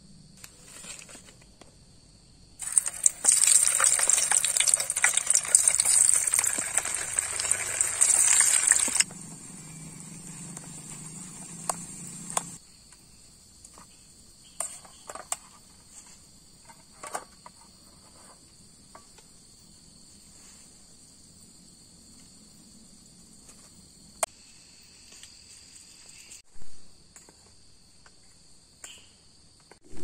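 Crickets chirring steadily at night. About three seconds in, a loud crackling hiss starts and runs for about six seconds before cutting off suddenly, and later come scattered light clinks and taps.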